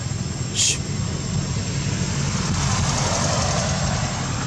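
A steady, pulsing low engine drone, with a swell of vehicle noise from about halfway through. A brief high-pitched sound cuts in about half a second in.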